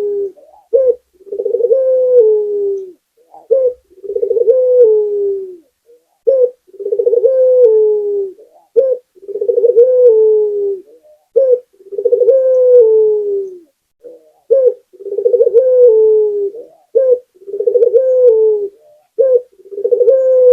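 Puter dove (Barbary dove) cooing in a steady series: each phrase is a short note followed by a longer rolling coo that drops in pitch at its end, repeated about every two seconds, some eight times.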